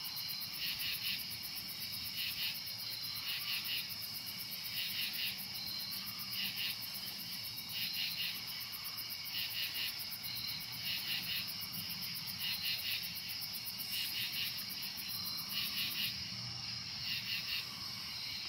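Crickets and other night insects calling: a steady high trill with rhythmic chirps repeating every second or so.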